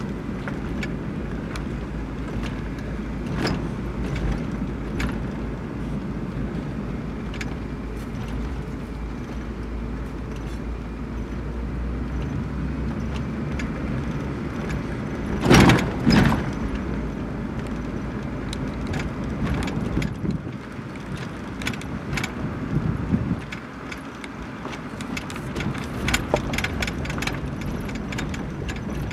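A car's engine and tyre rumble heard from inside the cabin while it rolls slowly, with small clicks and rattles and a loud double knock about halfway. The low rumble drops away about three-quarters of the way through.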